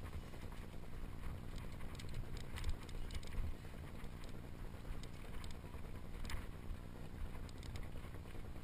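Mountain bike rolling down a rocky singletrack, heard through its on-board camera: a steady low rumble of wind and vibration on the microphone, with scattered clicks and rattles as the bike goes over stones.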